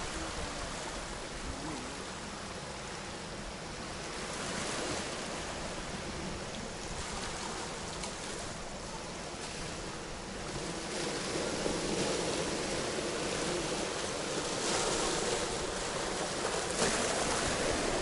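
Small sea waves washing onto a pebble beach: a steady hiss of surf that swells and eases every few seconds, growing louder in the second half.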